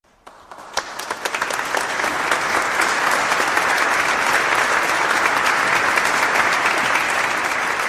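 Audience applauding, building up over the first two seconds into sustained clapping.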